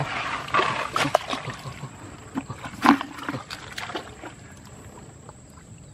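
Hands squelching and splashing in muddy water while digging out a burrow hole, in irregular sloshes with one louder splash about three seconds in; it quietens after about four seconds.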